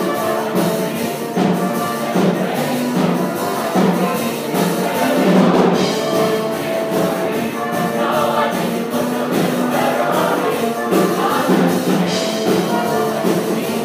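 A large show choir singing a choreographed number, with instrumental accompaniment and a steady percussive beat.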